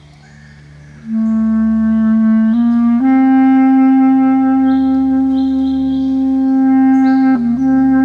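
Bass clarinet comes in about a second in, steps up through two short notes and holds a long low note, then moves to another note near the end. Short high bird calls from the dawn chorus sound over it.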